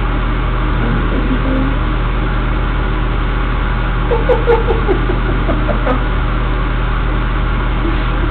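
Steady low mechanical hum from something spinning, with a few short squeaky chirps about four to five seconds in.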